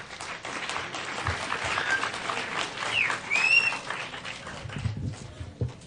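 Audience applauding, swelling and then dying away near the end.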